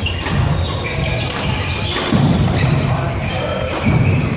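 Busy sports-hall din from badminton on several courts: sharp racket-on-shuttlecock hits and short squeaks of court shoes on the wooden floor over heavy thuds of footsteps, all echoing in the hall.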